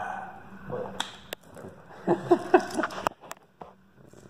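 A few sharp clicks and taps from gloved hands wrapping a strip of prepreg carbon fibre onto a mandrel held in a steel stand. A short burst of voice without words comes about two seconds in.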